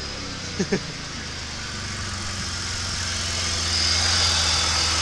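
Holden VY Calais's supercharged 3.8-litre L67 V6 idling steadily after being started, with two short sharp sounds about half a second in. The engine sounds healthy, with no big exhaust leak.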